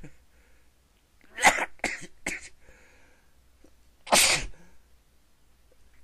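A person sneezing: a quick run of three sneezes about a second in, the first the loudest, then one more loud sneeze about two seconds later.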